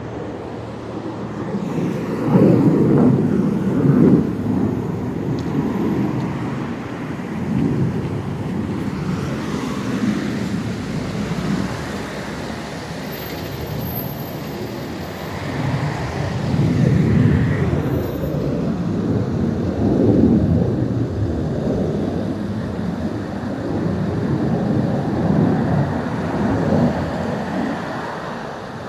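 Low rumbling from the sky that swells and fades several times, like a distant jet or rocket; the recorder suspects strange-sounding thunder.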